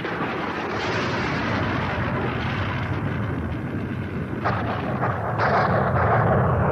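Thunder rumbling steadily, with two sharp cracks about four and a half and five and a half seconds in.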